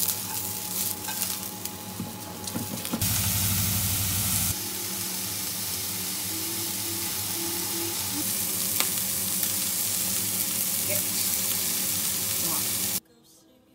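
Chicken and sliced green vegetables sizzling as they are stir-fried in a nonstick pan. There is a louder, fuller stretch about three seconds in, and the sizzle cuts off suddenly near the end.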